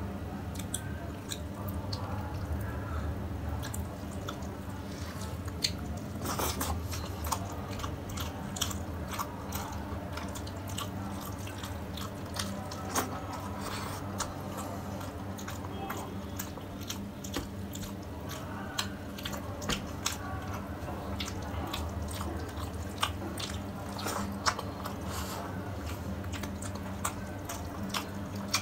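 Close-miked eating: chewing and wet mouth clicks while eating fish curry and rice by hand, with fingers squishing and mixing the rice on the plate. The sharp clicks come irregularly, over a steady low hum.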